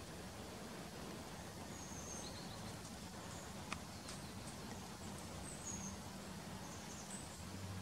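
Faint outdoor ambience: a steady low hum with scattered short, high-pitched bird chirps, and a single sharp click about halfway through.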